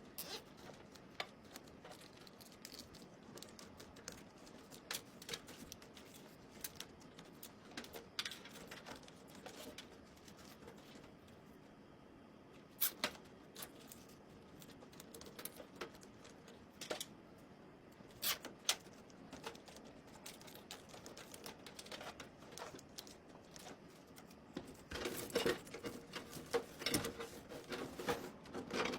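Irregular light clicks and taps of small hard objects being handled, becoming busier and denser near the end.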